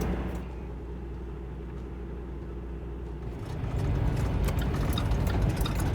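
Low rumble of a semi truck's diesel engine heard from inside the cab, steady at first and getting louder and fuller about three and a half seconds in.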